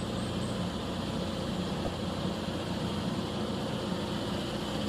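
Heavy machinery engine, typical of a vibratory road roller, running at a steady drone with an even low hum.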